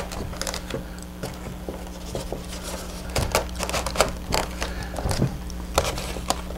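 Foam halves of a model airplane wing being pressed together over a plywood spar: scattered light clicks, creaks and rubbing of the foam parts under the hands, over a steady low hum.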